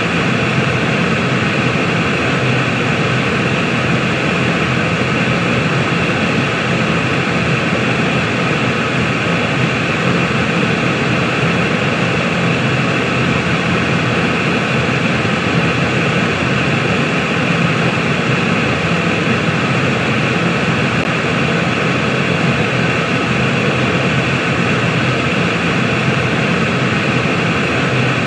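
Steady white-noise sleep sound: an even, unbroken rushing hiss with a low rumble under it, never changing in level.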